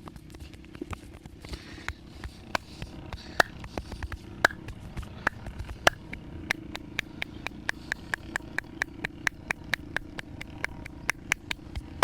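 Sharp slapping cracks of a massager's hands working on head, neck and back: a few scattered strikes at first, then a quick, even run of about three or four a second from about halfway in.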